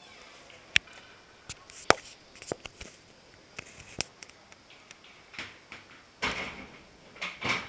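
Ice hockey sounds on the rink: three sharp clacks of sticks on ice and pucks, then a few short scrapes of skates on the ice near the end.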